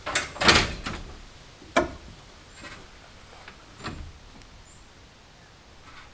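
Knocks and clunks of building materials being handled: a loud cluster of knocks in the first second, then single sharp knocks about two seconds and four seconds in.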